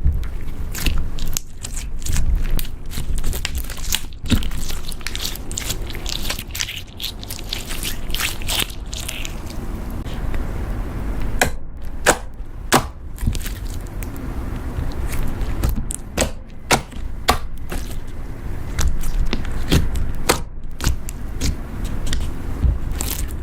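Slime being worked by hand, squeezed and pressed, making irregular crackles, clicks and sticky pops.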